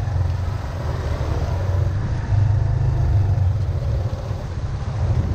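Motorbike being ridden on a wet road: a steady low engine drone with road and wind noise.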